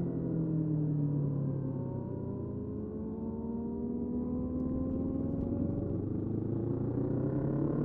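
Motorcycle engine running, its pitch falling over the first couple of seconds and then climbing slowly as it pulls again.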